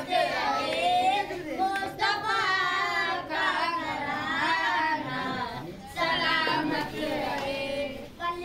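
A high voice singing a devotional song unaccompanied, in long wavering, ornamented phrases with short breaks between them.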